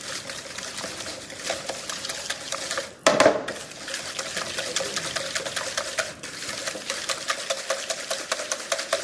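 Ghee and sugar being beaten together by hand in a bowl, quick even strokes clicking against the bowl, with a louder knock about three seconds in. This is the creaming of the fat and sugar for the dough.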